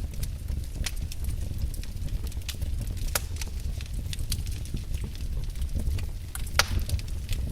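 Wood fire in a fireplace crackling, with irregular sharp pops over a steady low rumble of the flames. One louder pop comes near the end.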